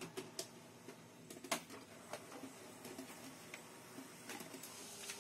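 HP LaserJet Pro M132 scanner carriage moving its scanning bar, driven by a substitute motor taken from an inkjet printer: a faint motor run with irregular clicks and ticks, the loudest about one and a half seconds in.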